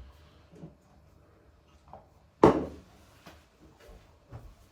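A single sharp knock or bang about two and a half seconds in, ringing briefly, with a few faint small knocks and handling sounds around it.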